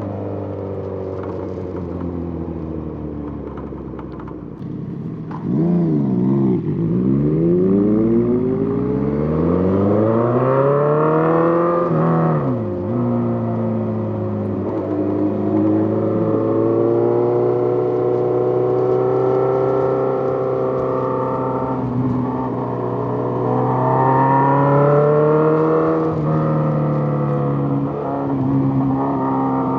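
Suzuki GSX-R1000 inline-four engine heard onboard while riding: the pitch dips and then climbs as the bike accelerates, drops sharply at a gear change about twelve seconds in, then stays fairly steady, rising and easing with the throttle.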